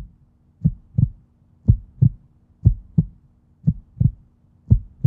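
Low double thumps in a heartbeat rhythm, lub-dub, about one pair a second, over a faint steady low hum.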